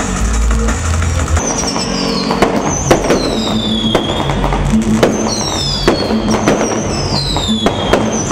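Fireworks going off: several whistling fireworks, each whistle falling in pitch, among sharp bangs and crackling.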